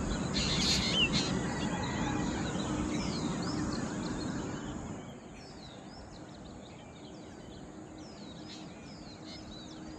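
Outdoor ambience with small birds chirping repeatedly in short falling calls, over a low background rumble that drops away about halfway through.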